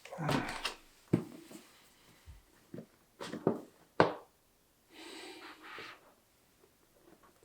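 Hands opening and handling a cardboard CPU retail box: a few sharp clicks and taps, the loudest about four seconds in, with a short rustle of packaging just after.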